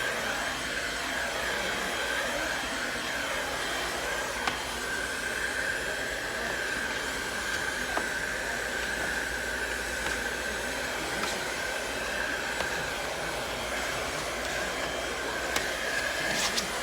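Handheld hot-air blower running steadily, heating a wallpaper seam to re-set it. Its whine wavers in pitch for the first few seconds, then holds steady, with a few faint clicks.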